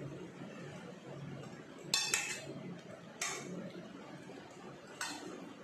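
Metal spoon clinking against a stainless steel serving bowl as curry is spooned out: a pair of sharp clinks about two seconds in, another about a second later and one more near the end.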